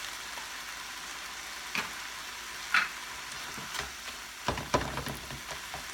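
Seasoned ground beef sizzling in a frying pan, a steady hiss. A few sharp clicks come about two and three seconds in, then a quick run of knocks from a utensil against the pan near the end.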